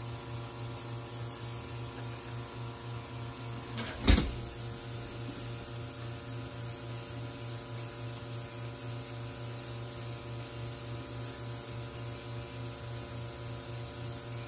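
Steady electrical hum from workshop equipment, with a single sharp knock about four seconds in.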